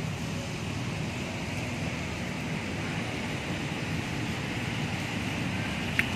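Steady outdoor background noise, a low rumble with a band of hiss above it, broken by one sharp click near the end.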